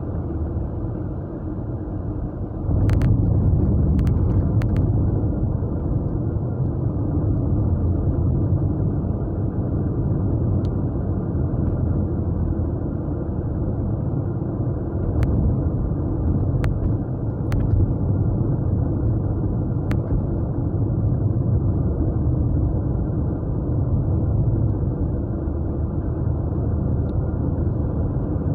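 A car's Japanese V6 engine and tyre noise heard from inside the cabin while driving, a steady low rumble that grows louder about three seconds in. A few faint clicks sound over it.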